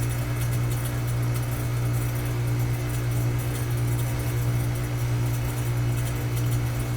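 Running air-conditioning unit: a steady low hum with an even rushing noise over it, unchanging throughout.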